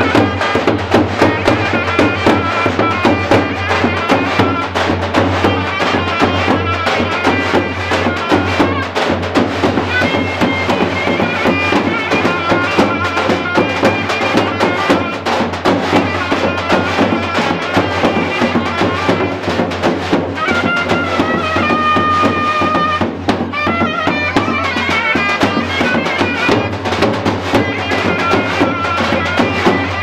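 Zurna, the Turkish double-reed shawm, playing a folk dance tune over the steady beat of davul bass drums. About two-thirds of the way through, the zurna holds one long high note.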